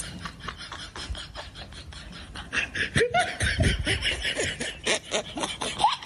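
Laughter, in quick repeated bursts, getting louder from about halfway through.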